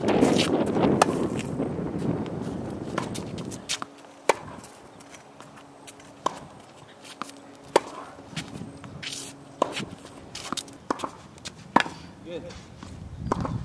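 Tennis ball struck by racquets in a rally on a hard court: sharp pops every second or two, with softer ball bounces and footsteps between them. A rushing noise covers the first few seconds.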